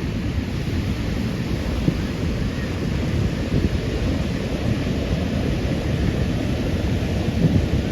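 Wind buffeting the microphone with a low, uneven rumble, over the steady wash of ocean surf.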